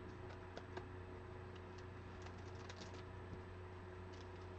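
Faint, scattered light clicks, a few a second, over a steady low hum.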